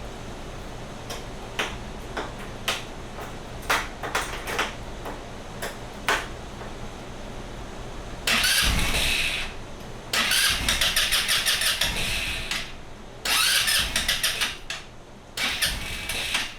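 GY6 150cc scooter engine being cranked on its electric starter in several bursts, starting about eight seconds in, each burst a rapid run of even strokes, after a few scattered clicks.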